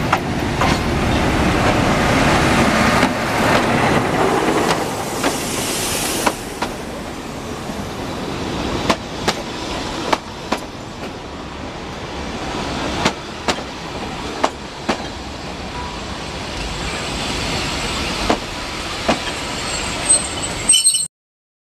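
Narrow-gauge diesel train pulling into a station: locomotive noise as it passes, then the carriages rolling by with sharp clacks, mostly in pairs, as the wheels cross rail joints. The sound cuts off suddenly near the end.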